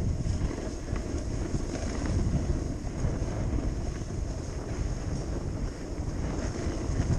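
Wind buffeting the microphone of a camera carried by a moving snowboarder, a steady rumbling rush, with the snowboard sliding and scraping over groomed snow underneath.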